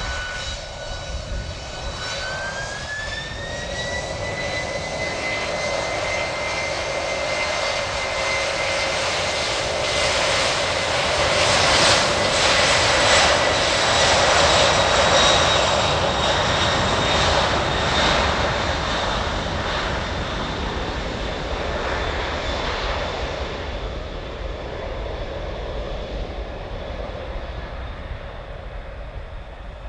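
Boeing 767's twin turbofan engines at takeoff power on the takeoff run: a whine that rises in pitch in the first few seconds as the engines spool up, then a jet roar that grows loudest as the airliner passes about halfway through and fades as it moves away down the runway.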